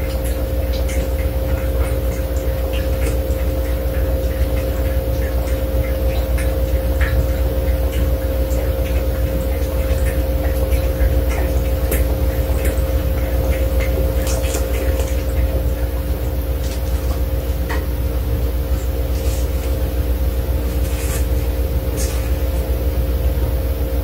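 Small irregular clicks and licking sounds of a Pomeranian feeding from a shallow bowl, over a steady low hum with two held tones.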